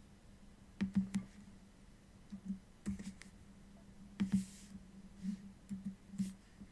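Faint plastic clicks of a Megaminx puzzle's face being turned by hand, a dozen or so irregular clicks with a brief scrape a little past the middle.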